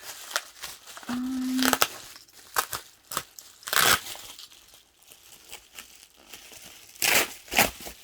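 Packaging crinkling and tearing as a package is opened by hand, in irregular rustling bursts with louder tears near the middle and near the end.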